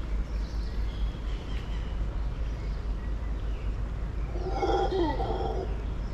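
A short animal call of several stacked pitched tones, one sliding downward, about four seconds in, over a steady low rumble, with faint high whistles in the first two seconds.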